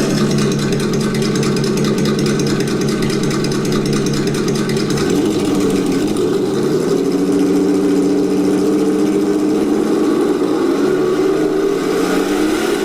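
Simulated car engine sound played through a Sense Innovations ESS-Dual engine sound system speaker in an RC car, idling and then revving up in pitch about five seconds in, with further pitch changes near the end.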